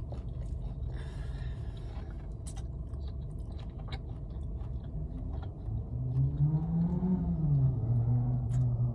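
A man chewing a mouthful of Philly cheesesteak sandwich, with small wet clicks, over a steady low rumble. In the last few seconds a low hum rises in pitch and falls again.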